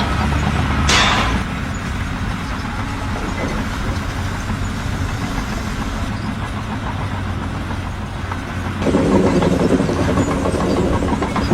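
A heavy engine running steadily, with a short hiss about a second in; from about nine seconds in the engine sound turns louder and rougher.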